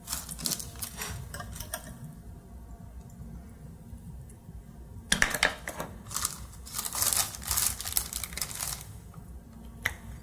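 Metal spoon scooping flour out of a plastic bag into a measuring cup: the bag crinkles and the spoon scrapes. This comes in two stretches, the second starting about five seconds in.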